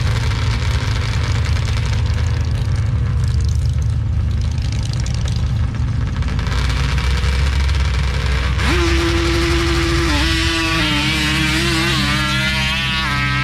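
Engines of a Polaris RZR side-by-side and a Banshee-based ATV idling at a sand drag start line, then revving hard about nine seconds in as they launch, their pitch rising and wavering.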